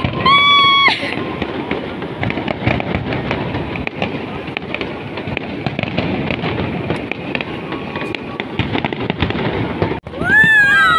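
A fireworks display: a dense, continuous crackle of many shells bursting. There is a short held tone in the first second and a whooping voice near the end.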